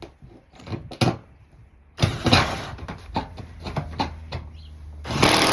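Knocks, clatter and scraping of roofing material being handled. Near the end comes a loud burst of about a second from a power drill.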